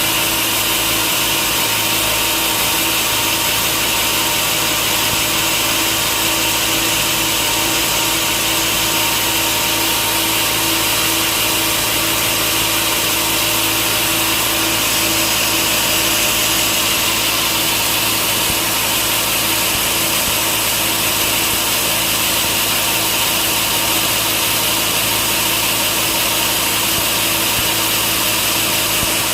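Sawmill saw running steadily and cutting through a log, with an even, unbroken noise and a steady hum.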